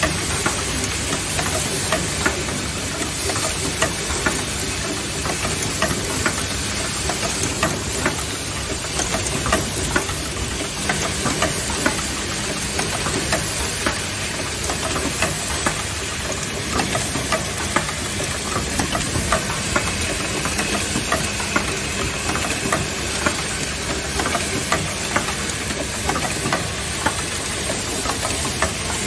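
Automatic soft-close hinge assembly machine running: a steady clatter of many small metal clicks and knocks over a constant air hiss from its pneumatic cylinders.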